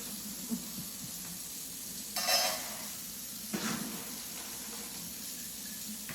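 Kitchen work as dog supper is prepared: a steady hiss with two short scraping noises, the louder one about two seconds in and a fainter one a little over a second later.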